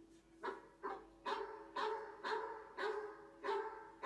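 A dog barking repeatedly, about eight barks at roughly two a second, heard through a TV's speaker from a dog documentary.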